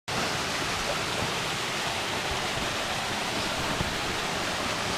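Small mountain waterfall cascading over rocks into a shallow stream, a steady rush of falling and running water.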